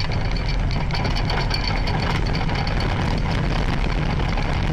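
Earthquake shaking filmed from a high building: a loud, steady deep rumble with dense rattling and clattering running through it.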